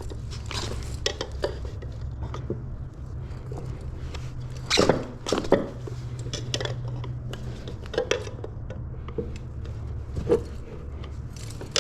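Metal tire levers clinking and scraping against a motorcycle wheel rim while prying a tight tire bead over it, with a few sharper knocks about five seconds in and again near ten seconds. A low steady hum runs underneath.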